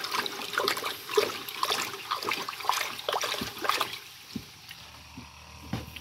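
Water poured from a bucket into a plastic barrel of liquid fertilizer mix, splashing, then dying down to a faint trickle about two-thirds of the way through.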